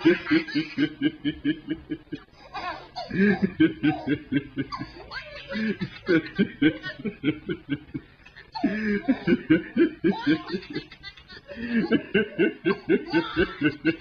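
A man laughing hard and uncontrollably, in several long bouts of quick, even ha-ha pulses with short breaks between them.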